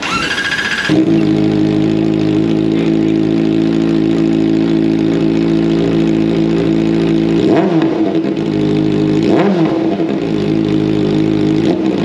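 Kawasaki ZX-4RR's inline-four engine, breathing through a newly fitted aftermarket muffler, starts up about a second in and settles into a steady idle. It is then blipped in short revs, twice in the second half and once more right at the end.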